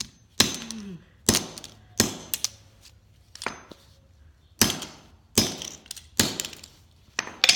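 Hammer striking a Hot Wheels toy car on a concrete floor: about ten sharp blows, roughly one a second and unevenly spaced, each with a brief metallic ring.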